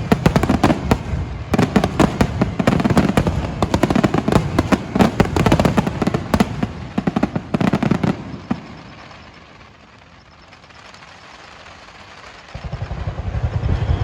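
Aerial fireworks finale barrage: a rapid, dense string of shell bursts and crackling for about eight seconds, dying away to a low rumble, with more bursts starting again near the end.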